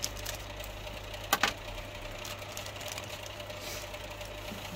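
Workshop heater running with a steady hum, and two sharp clicks close together about a second and a half in.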